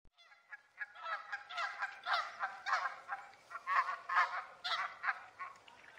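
Canada goose honking in a rapid, overlapping series of calls that starts about a second in and is loudest around the middle.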